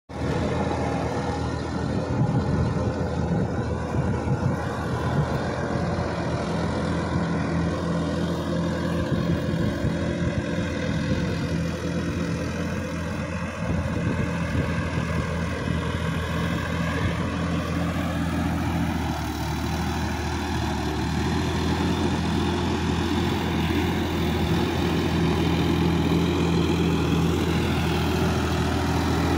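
Sonalika DI-50 RX tractor's diesel engine running steadily under load as it drags a tillage implement through flooded paddy mud, its note shifting slightly about two-thirds of the way through.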